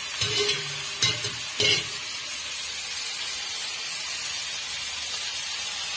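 Goat intestine pieces sizzling steadily as they fry in a pan of hot oil. Three short clatters of a spoon stirring against the pan come in the first two seconds.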